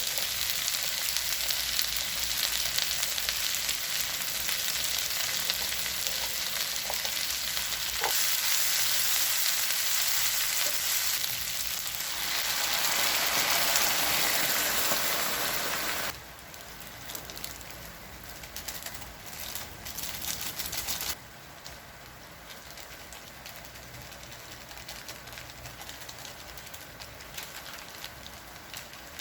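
Food sizzling and frying in a hot pan, a steady crackling hiss that drops suddenly to a quieter sizzle about 16 seconds in and again about 21 seconds in.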